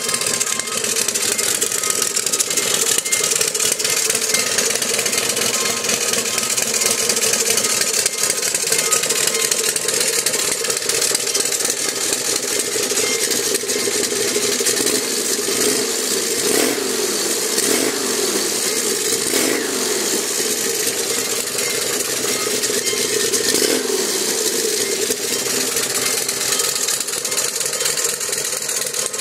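Turbocharged Buell S1 air-cooled V-twin motorcycle engine running, with a steady ringing tone over it that the owner calls a strange sound, like a church bell. The engine's pitch rises and falls a few times a little past halfway.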